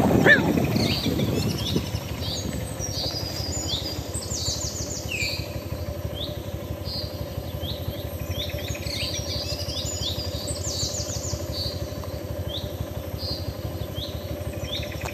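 Several forest birds chirping and calling, many short high chirps and quick sweeping calls overlapping, over a steady low hum. A louder low rumble fades out in the first two seconds.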